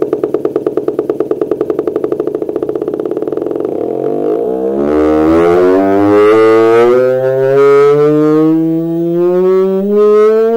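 Auxetophone air-powered amplifier sounding through its valve plates, driven by an electrodynamic shaker. A rapid low pulsing quickens over the first few seconds and merges into a buzzy tone, which then glides steadily upward in pitch like a siren.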